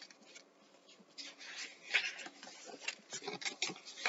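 Pages of a picture book being handled and turned: soft paper rustling with small taps and clicks, starting about a second in.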